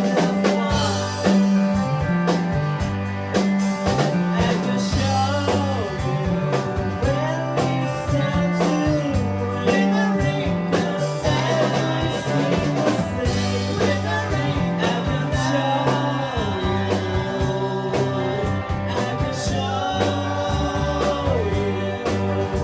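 A band playing a rock-style song: a singer's voice carrying the melody over guitar, a stepping bass line and drums.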